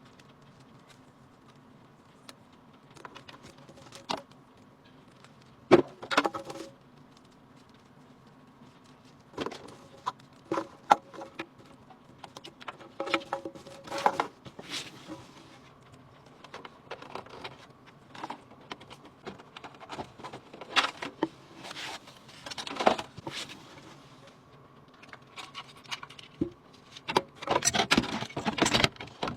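Irregular clicks, taps and light rattles of computer hardware being handled and fitted during a PC build, over a faint steady hum. The handling gets busier near the end.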